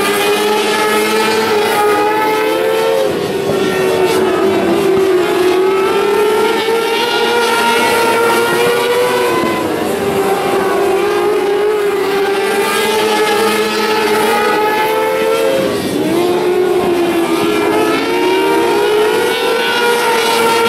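600cc micro sprint cars racing, their motorcycle engines running flat out at high revs. The engine note drops as they lift for the turns and climbs again down the straights, about every six seconds.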